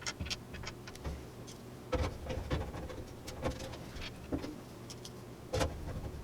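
Screwdriver and small screws clicking and tapping against a motherboard and the metal case as the motherboard mounting screws are put in, with louder knocks about two seconds in and near the end.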